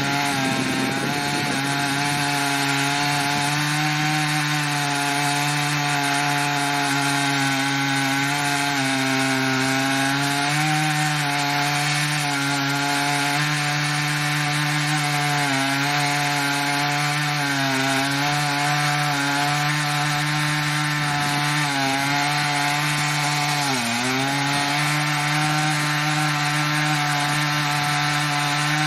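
Stihl MS880 two-stroke chainsaw running at steady full throttle under load, ripping lengthwise through a red oak log on an Alaskan chainsaw mill. The engine note holds steady with small sags in pitch as the chain loads up in the cut, and one deeper dip a little past three quarters of the way through.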